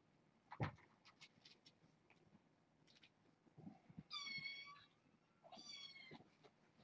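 A young kitten meows twice, two high-pitched calls each under a second long, about a second apart. A single sharp thump comes about half a second in, among a few light taps.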